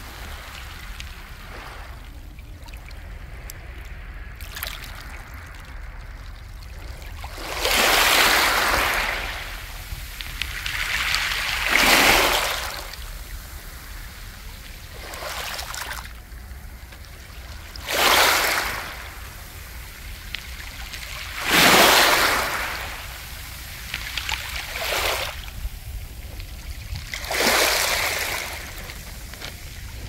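Small waves washing up a beach of smooth round mongdol pebbles and drawing back, the stones rolling and rattling in the backwash. A surge comes every three to four seconds, each swelling and fading, with quieter lapping between.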